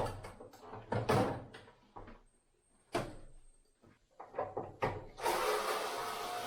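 Knocks and clatter from handling parts of a washing machine, three separate knocks in the first three seconds. About five seconds in, a steady rushing noise begins and carries on.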